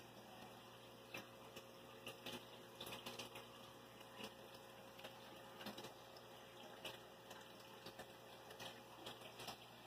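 Faint aquarium water bubbling from the tank's filter, over a low steady hum, with scattered soft ticks.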